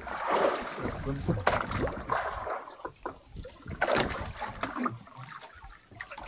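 Irregular knocks, clicks and handling noises aboard a small wooden fishing boat at sea, with a burst of hiss about half a second in and brief low voices.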